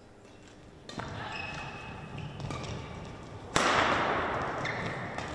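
Badminton rally on an indoor hall court: shuttlecock hits and short high squeaks of players' shoes on the court floor, starting about a second in. About three and a half seconds in comes a sudden loud burst that rings on in the hall.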